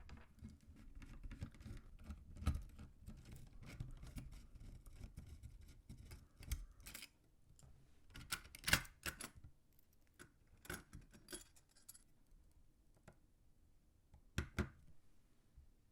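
Hands handling PC-build parts and packaging: about seven seconds of scratchy rustling and scraping, then a series of sharp clicks and taps, with two more clicks near the end.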